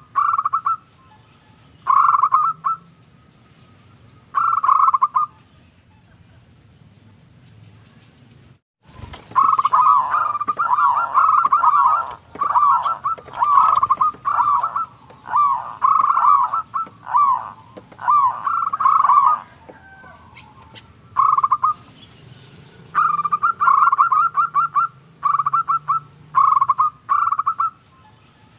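Zebra dove (perkutut) cooing: repeated short phrases of fast rolling coos. After a brief dropout about nine seconds in, the phrases come close together and overlap for about ten seconds, then separate again.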